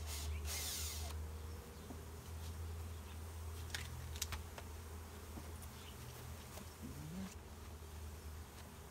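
A mass of honeybees from a disturbed feral colony buzzing steadily, with a brief rustle near the start and a couple of sharp clicks about four seconds in.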